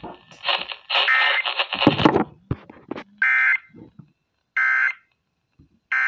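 Emergency Alert System end-of-message data tones from a radio speaker: short, identical buzzy bursts about 1.4 seconds apart, two in the middle and a third starting at the very end, marking the close of the tornado warning. Before them, about two seconds of the broadcast's audio tails off with a few knocks.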